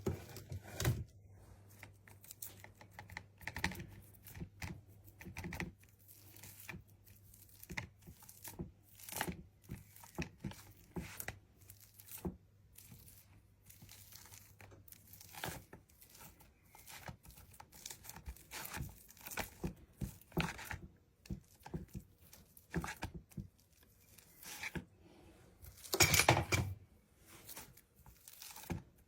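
A sheet of paper crinkling and rustling in short, irregular crackles as it is handled while potato filling is spread on it, with one louder rustle near the end.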